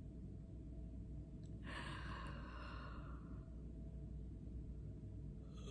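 A woman's soft, breathy sigh out, starting about a second and a half in and fading away over a second or so, over faint steady room hum.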